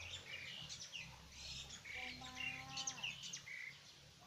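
Birds chirping and calling, with many short high chirps throughout. About two seconds in comes a longer, lower call that holds steady for nearly a second and drops at its end.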